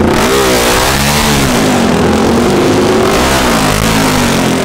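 Racing motorcycle engine running loud, its revs swinging up and down about once a second.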